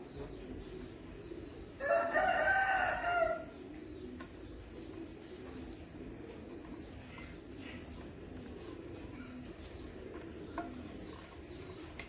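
A rooster crows once, a single crow of about a second and a half starting about two seconds in, over a low steady background.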